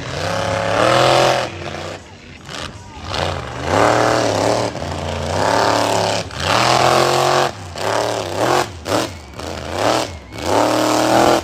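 Monster truck engine revving hard in repeated bursts, its pitch climbing and falling as the throttle is worked on and off, with short drops between.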